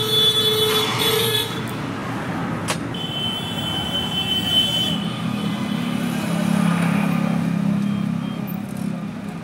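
Road traffic going by, with a vehicle horn sounding at the start and again about three seconds in, a single sharp click in between, and a vehicle engine droning in the second half.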